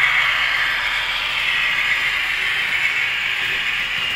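Model freight train of a CC 68000 locomotive and Cargill hopper wagons running past close by on model track: a steady hissing rolling noise from the wheels and running gear.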